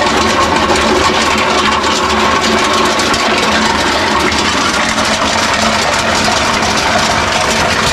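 Areca nut dehusking machine running steadily as dried areca nuts are fed through it by hand.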